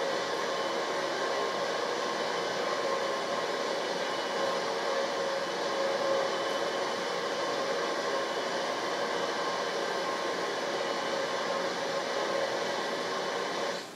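Steady machine whirring noise with a few faint steady hums, played back from a video over loudspeakers; it cuts off abruptly near the end.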